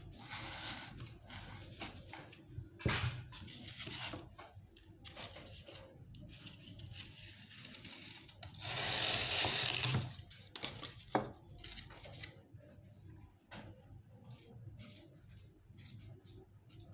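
Kitchen knife sawing through a block of green floral foam, a noisy scrape of about a second and a half near the middle. Around it, scattered clicks, knocks and rustles of foam pieces and tools being handled on a table.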